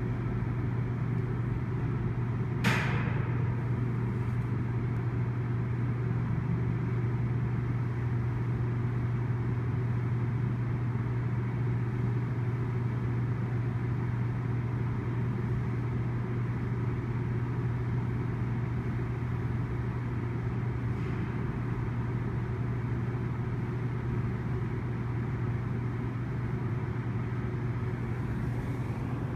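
A steady low hum over distant road traffic noise, unchanging in level, with a single sharp click about three seconds in.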